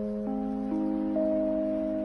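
Background music: soft keyboard notes held and layered into a chord, a new note joining about every half second.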